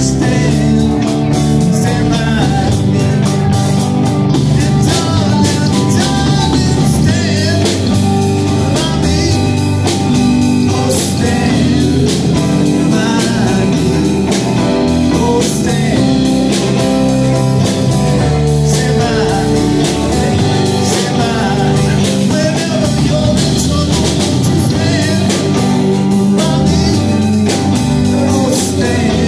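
Live blues band playing loud and amplified: electric guitars over drum kit, bass and keyboard.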